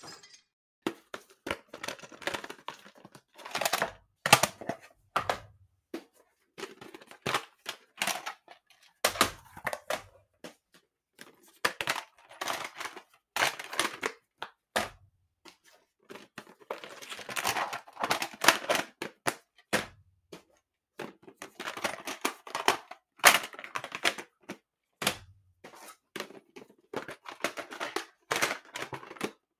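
Plastic VHS tape cases being opened and shut again and again: irregular sharp plastic clicks and snaps, with short scraping and rattling between them and now and then a duller thunk as a lid closes.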